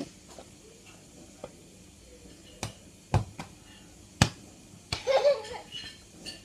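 A handful of sharp taps and knocks, then a child's voice breaking out briefly about five seconds in.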